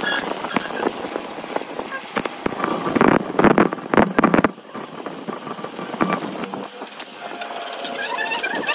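Electric arc welding on a truck axle shaft: a steady crackle and sizzle of the arc, louder for a stretch around the middle.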